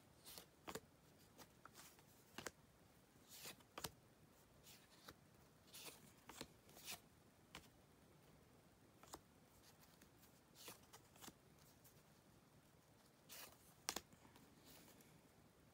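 Baseball cards being handled and sorted by hand: faint, scattered taps and rustles as the cards are picked up, slid and set down, with one sharper tap near the end.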